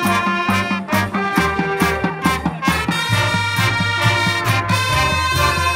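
Marching band playing an up-tempo piece: brass chords from trumpets and trombones over a steady beat of drum hits and a low bass line.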